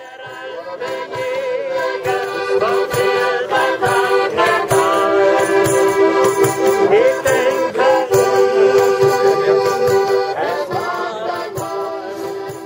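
Accordion playing a traditional tune, held chords over a steady rhythmic bass, fading out near the end.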